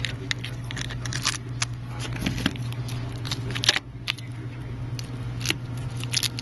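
Scattered small clicks, ticks and crackles of clear tape being handled and pressed around a phone's display frame, over a steady low hum.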